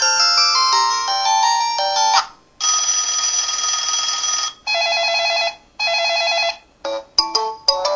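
LG-KP8500 mobile phone playing its built-in ring tones one after another. An electronic note melody ends about two seconds in. Then comes a steady buzzing ring tone, two shorter warbling ring bursts, and, near the end, short clipped beeping note phrases.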